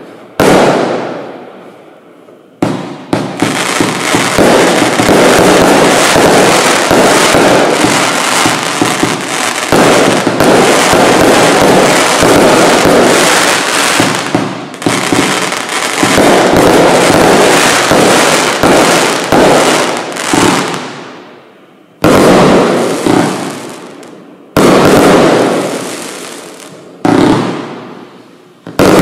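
Bright Star 'Bloodlust' 88-shot compound barrage firework cake firing, its shots and bursts following so fast that they run together into continuous banging and crackling for about ten seconds, then again for about five after a short lull. Near the end, single bursts come every two or three seconds, each fading away.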